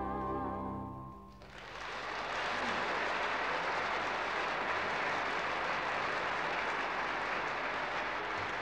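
The orchestra's final sustained chord, strings with vibrato, fades out just over a second in. Then an audience bursts into steady applause.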